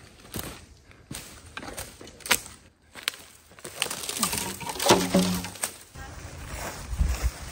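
Freshly cut bamboo poles knocking and their leafy tops rustling as they are handled and dragged. There are a few sharp knocks in the first three seconds and a short vocal sound about five seconds in. Low wind rumble on the microphone comes in near the end.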